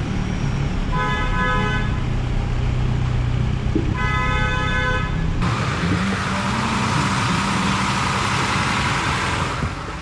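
Dense city street traffic heard from inside a moving van: a steady low engine and road rumble, and two car-horn honks about a second long, roughly three seconds apart. About halfway through, a steady loud hiss comes in and stops shortly before the end.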